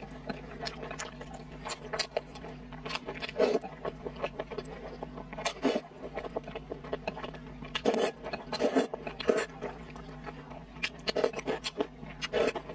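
Close-miked eating sounds of braised pork and sweet-potato glass noodles: wet chewing and smacking clicks at an irregular pace, with noodles slurped up around the middle.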